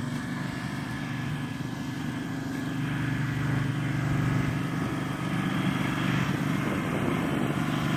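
Small engine of a ride-on lawn spray rig running steadily as it drives across the lawn applying liquid treatment, getting a little louder from about three seconds in.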